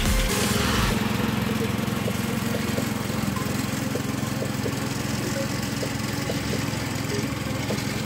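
Ride-on lawn mower engine running steadily, growing slightly fainter as the mower moves off across the lawn.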